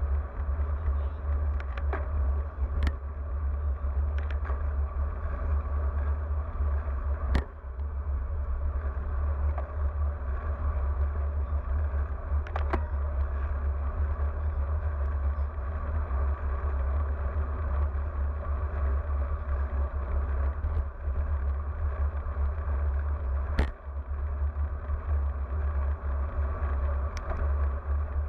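Steady low wind rumble on a bike-mounted action camera's microphone while riding a road bike at speed, with a few sharp knocks from the bike over the road.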